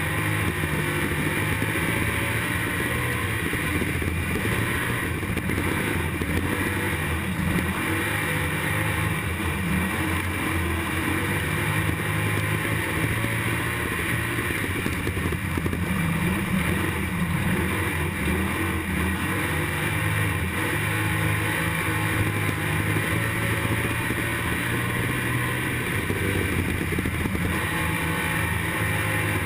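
IMCA stock car's V8 racing engine under race load, recorded from on board the car. The engine note rises and falls every few seconds as the throttle comes on and off through the laps.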